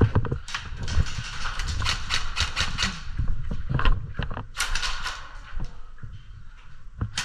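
An irregular run of sharp clicks and knocks over low thuds, with no clear rhythm.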